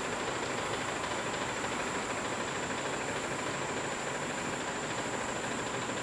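Steady background hiss with a constant high-pitched tone above it, unchanging throughout and with no distinct events.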